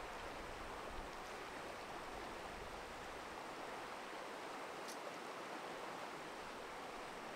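Steady rush of a clear, boulder-strewn river running over shallow riffles.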